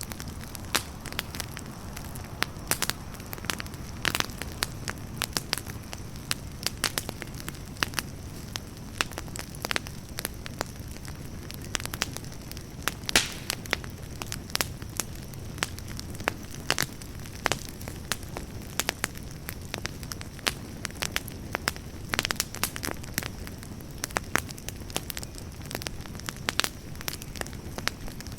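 Wood fire burning, with many sharp irregular crackles and pops over a low steady rumble of the flames.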